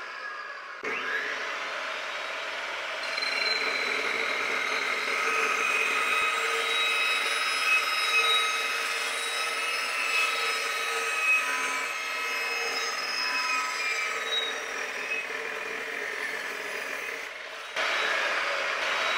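Fein Slugger 14-inch carbide-tipped chop saw running and cutting through a thin-wall 3-inch 6061 aluminium tube. It is a steady whirr with several steady ringing tones while the blade is in the tube, and gets louder again near the end.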